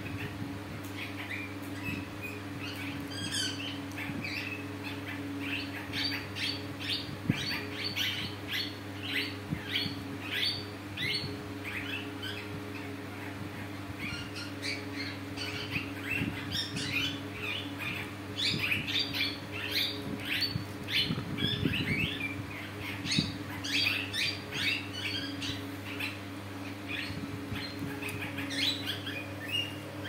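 Alexandrine parakeets chirping: runs of short, sharp, high calls, several a second, coming in spells, over a steady low hum.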